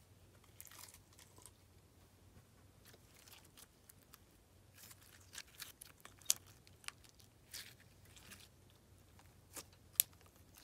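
Clear slime packed with small plastic beads being squeezed and pressed by hand, giving irregular crunchy crackles and sticky pops, with a few sharp clicks, the loudest about six seconds in and near the end.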